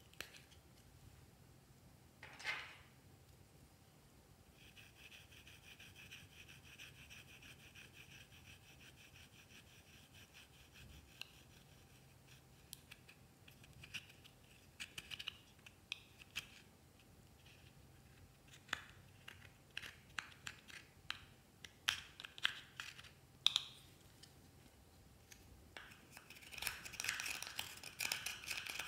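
A metal spatula scraping and crumbling pressed eyeshadow in a small plastic compact: light clicks and taps, a long stretch of steady fine scratching, and denser, louder scratching near the end.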